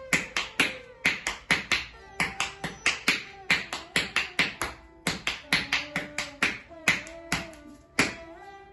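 Kathak footwork (tatkar) in teentaal: bare feet stamping on a tiled floor in quick rhythmic phrases, about four stamps a second with short breaks between phrases.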